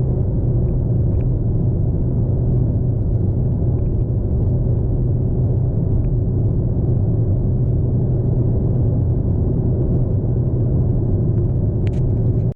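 Steady low road and engine drone of a moving car, which cuts off suddenly at the very end.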